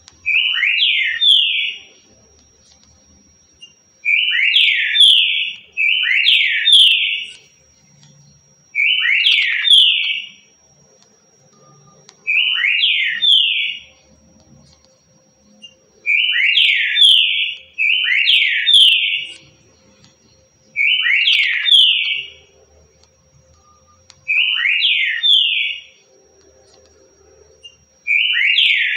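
Green-winged saltator (trinca-ferro) singing the "currucutil" song type: a short phrase of rapid slurred whistled notes, repeated over and over with pauses of one to two seconds between.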